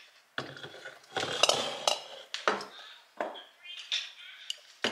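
Glass jars with metal lids knocking and clinking against each other and the shelf as they are set down and arranged in a cupboard, several separate knocks with short glassy rings.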